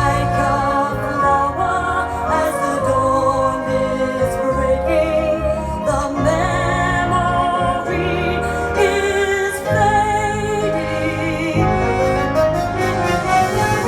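Operatic singing with classical accompaniment, the voice holding wavering notes with strong vibrato, played back from a vinyl record on a VPI Prime turntable with a Soundsmith Zephyr MKIII cartridge.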